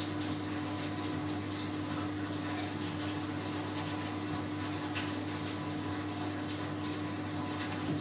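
Baxi gas combination boiler running steadily, fired on hot-water demand: a constant hum with an even, water-like rushing noise that does not change.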